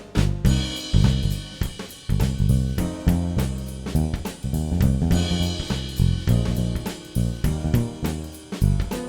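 Background music: a drum-kit groove with snare, bass drum, hi-hat and cymbals over a bass line, keeping a steady beat.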